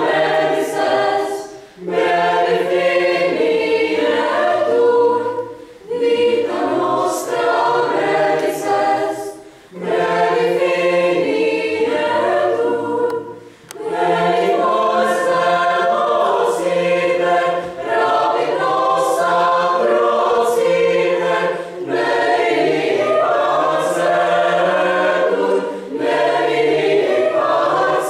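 A choir of girls and young women singing. The phrases break off briefly every few seconds in the first half, then the singing carries on more continuously.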